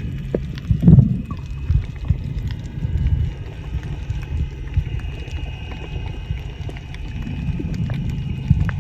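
Steady low rumble of a boat's engine, with scattered knocks and a louder thump about a second in.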